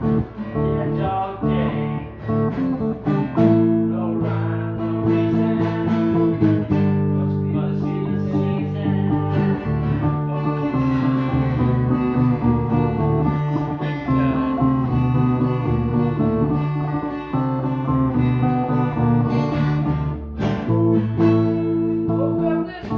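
Stratocaster-style electric guitar playing held chords and short melodic lines, the notes changing every second or so.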